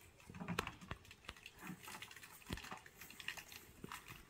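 Scattered faint clicks and light knocks of parts and gear being handled, a few sharper ones about half a second and a second in and another near two and a half seconds.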